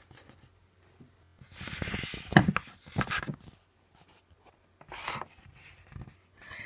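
Objects being handled: irregular rubbing and scraping with a few sharp clicks and knocks, loudest about two and a half seconds in, as a slime tub is picked out and handled.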